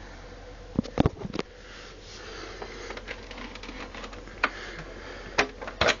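Argos Value dehumidifier running with a steady hum and rush of air, the air noise swelling through the middle. Sharp knocks and clicks cut across it: a cluster about a second in, then single ones near the end.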